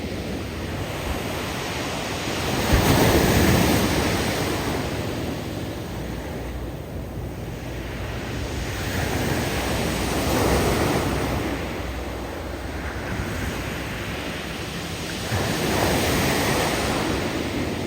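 Surf breaking on a steep bank of loose cobbles: three slow surges of waves, the loudest about three seconds in, each followed by a hiss as the retreating water tumbles the loose rocks.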